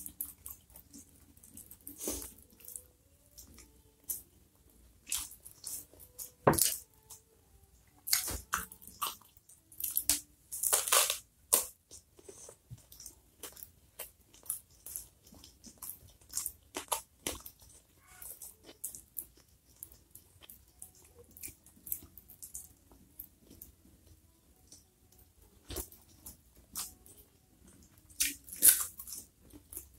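Close-miked eating: chewing and mouth sounds with scattered sharp crunches. The loudest crunches come near the end, as a piece of raw bitter melon is bitten.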